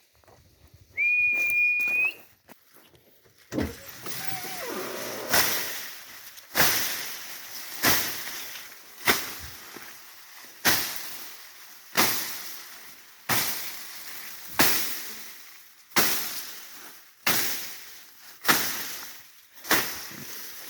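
A single whistled note, high and steady and about a second long, rising slightly at the end, as if calling a dog. A few seconds later a regular series of sharp rustling strikes starts, about one every 1.3 seconds, each dying away over about a second.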